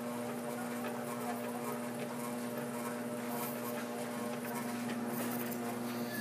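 A glass lathe running with a steady hum, with scattered light clicks and taps.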